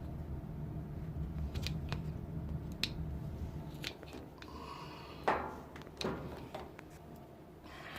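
Plastic condensate drain tubing being cut by hand: scattered snips and clicks, with a sharper crunch a little past the middle. A low hum sits underneath for the first half.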